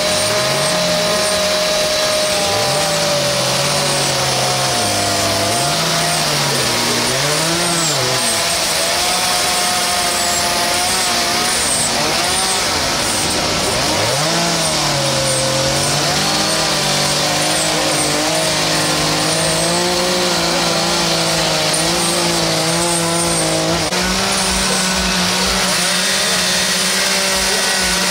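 Several two-stroke chainsaws running at once, their pitch rising and falling with the throttle as they cut into wood.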